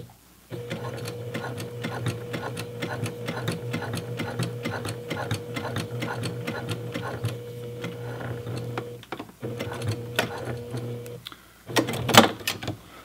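Home sewing machine stitching a seam through layered denim: a steady motor hum with rapid, even needle strokes, pausing briefly just after the start and again about nine seconds in. It stops about eleven seconds in, and a few sharp clicks follow.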